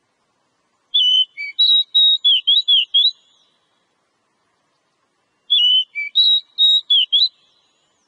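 Oriental magpie-robin (kacer) singing: two phrases of clear whistled notes, some slurred up and down, the second phrase about a second in length longer gap after the first and repeating much of it.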